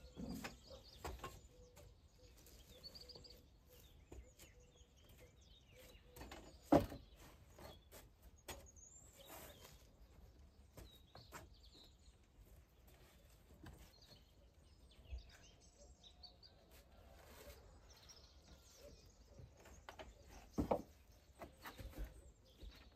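Birds chirping on and off over quiet outdoor ambience, with scattered knocks from work on a stone wall. The loudest knocks come about seven seconds in and again about twenty seconds in.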